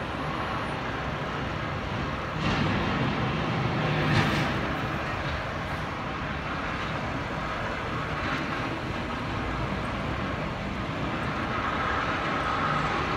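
Sanitation trucks fitted with snow plows, running along a snow-covered city avenue: a steady low engine rumble under street noise, louder for a couple of seconds a little way in.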